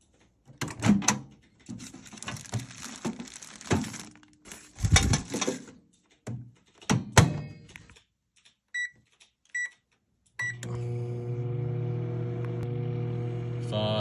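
Clattering and thunks as pizza is loaded into a microwave oven and its door is worked, then three short keypad beeps less than a second apart, after which the microwave starts running with a steady hum.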